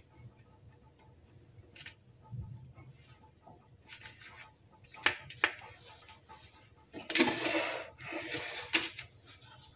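Metal spoons clinking and scraping against a stainless steel mixing bowl while cookie dough is scooped out, a few sharp clicks in all, with a longer rustling scrape a little past the middle as the parchment-lined baking tray is handled.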